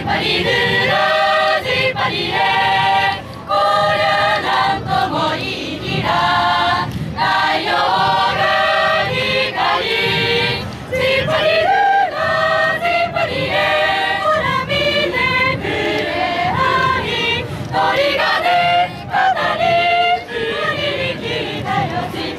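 Chorus of young wind band members singing unaccompanied under a conductor, holding chords in short phrases with brief breaks between them.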